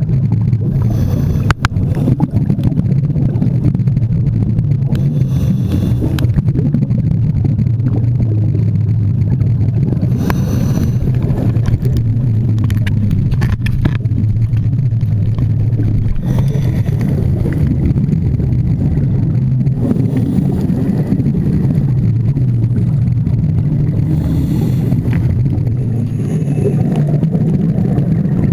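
Underwater sound on a scuba dive: a steady low rumble, with a rush of regulator exhaust bubbles about every four to five seconds.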